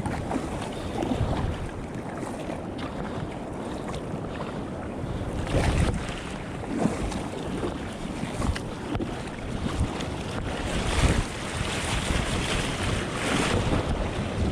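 Wind buffeting the microphone over the rush of sea water around a kayak at sea, with a few louder surges of water.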